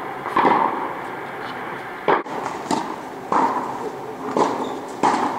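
Tennis rally on an indoor court: the pop of racket strings hitting the ball and the ball bouncing off the court surface, about six sharp hits at uneven gaps, each ringing on in the hall's echo.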